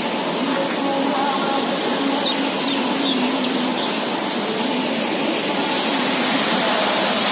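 Steady rush of water from the dam spillway and river, with a few brief high chirps about two to three seconds in.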